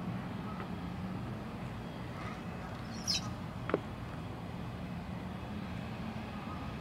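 Steady low engine hum of motor traffic. A brief high chirp comes about three seconds in, followed by a single sharp click.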